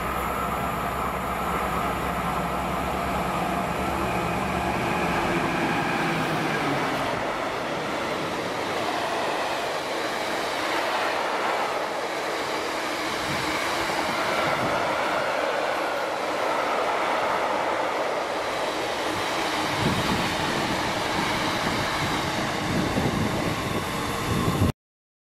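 Class 60 diesel locomotive, with its eight-cylinder Mirrlees engine running, passes close by. From about six seconds in comes a long rake of tank wagons rolling past, wheels on the rails. The sound cuts off near the end.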